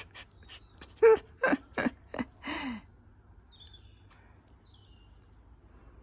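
Kangal puppies play-fighting, giving a quick run of about five short barks and yelps in under two seconds, the last one dropping in pitch.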